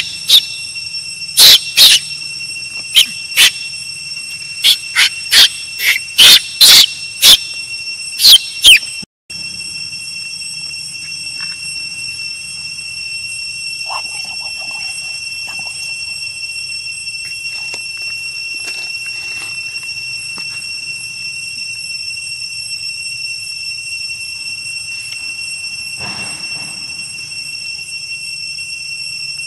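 A baby macaque gives a rapid series of short, loud, high squeals over the first nine seconds. After that, only a steady, high-pitched insect chorus goes on.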